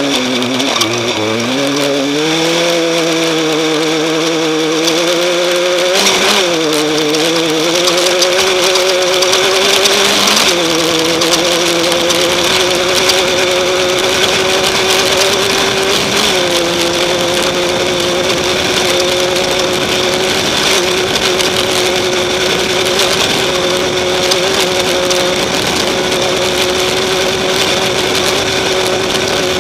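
Off-road race car's engine running hard, climbing in pitch in the first couple of seconds, then held at high revs with three short dips about six, ten and sixteen seconds in, over a dense rushing noise.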